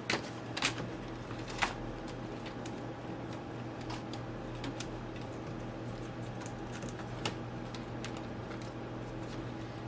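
Sheet-metal top shield of an iBook G4 being set onto the laptop's frame and pressed into place by hand, giving a few light clicks and taps. The sharpest comes about a second and a half in, and softer ones are scattered later, over a steady low hum.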